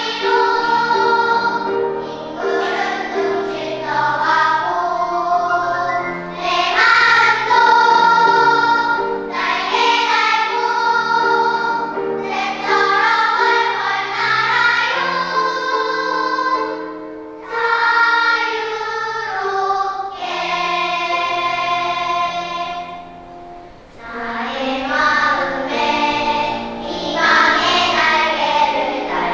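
A choir singing in harmony, with long held notes over a lower sustained accompaniment. The sound thins out and falls quiet just before two-thirds of the way through, then the voices swell back in.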